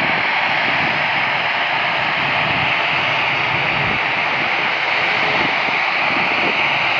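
Jet airliner engines, a steady high rushing noise that holds level throughout.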